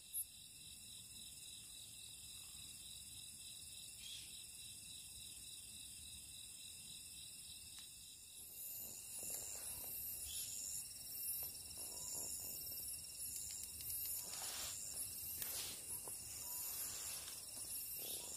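Night insects such as crickets chirping faintly: a steady, finely pulsed high chirring, joined about halfway by a second, slower rhythmic chirp. A few brief soft rustles sound in the second half.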